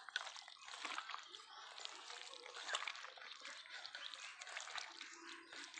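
Wet squelching and squishing of roasted eggplant pulp being kneaded and mashed by hand with onion and chili, a steady run of small sticky crackles.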